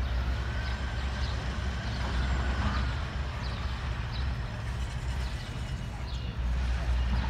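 Low, steady engine rumble of a vehicle that eases a little about five seconds in and picks up again near the end, with short high chirps now and then.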